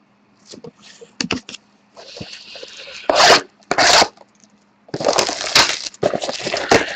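Sealed hobby box of 2013-14 Titanium hockey cards being opened by hand, with wrapper and cardboard tearing, scraping and rustling. Short clicks and rustles come first, then two loud tearing bursts about three and four seconds in, and a longer stretch of tearing and scraping near the end.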